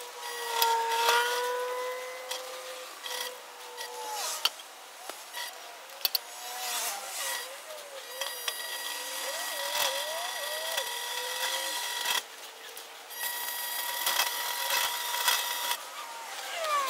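Hand-cranked bead roller pressing a bead into 3-inch steel exhaust tubing: the steel tube squeals as it turns through the rollers, a sustained high squeal with wavering, gliding squeaks and a few sharp clicks.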